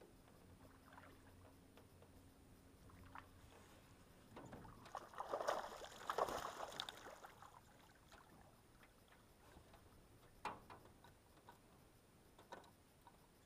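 A hooked fish splashing and thrashing at the water's surface while being fought on a jigger pole, a burst of splashing lasting a few seconds about midway. Later, two sharp knocks.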